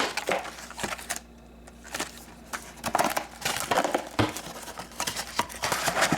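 Plastic wrapping on a box of trading cards being torn open and crinkled, heard as irregular rustles and sharp clicks, with a short lull about a second in.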